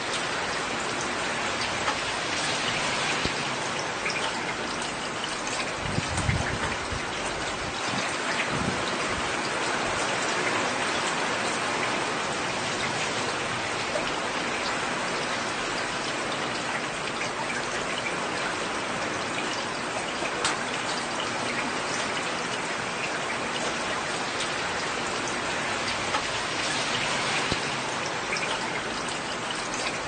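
Heavy rain falling steadily, a dense even hiss of drops with small spattering ticks, and two brief low thumps about six and eight and a half seconds in.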